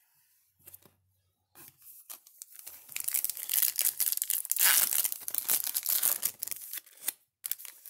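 Foil wrapper of a Topps Gallery baseball card pack being torn open and crinkled. Light handling at first, then a dense crackling tear from about three seconds in that lasts several seconds.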